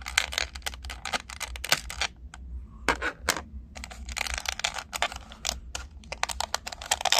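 Rapid, irregular clicking and crackling of plastic packaging being handled as an action figure is worked out of its box.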